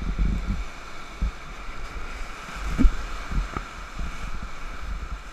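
Whitewater rapids rushing around an inflatable raft, with wind buffeting the microphone and a few low thumps, the loudest about halfway through.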